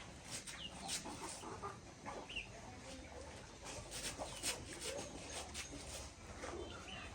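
Farmyard chickens clucking quietly, with scattered small clicks and knocks and a couple of short high chirps.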